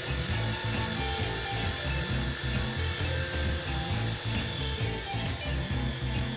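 Electric grater's motor running steadily, with a whine, as it shreds yellow cheese. Background music with a low beat plays underneath.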